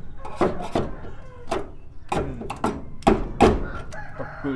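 Hand scraper knocking and scraping at burnt body filler and rust on the steel side panel of a Mitsubishi L300 pickup's load bed, about a dozen irregular sharp strikes.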